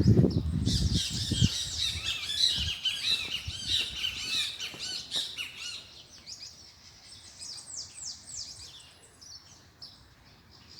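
A flock of small birds chirping busily, many short calls overlapping, thinning out and fading near the end. A loud low rumble sits under the first second or so.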